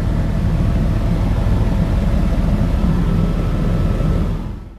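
Helicopter cabin noise in flight: the turbine engine and rotor run steadily, with a fast low beat from the blades under a dense rushing noise. It fades out near the end.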